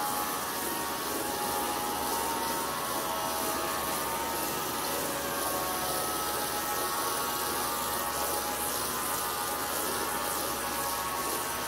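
High-pressure water jet spraying onto a wet rug and tiled floor, a steady hiss, over a steady hum.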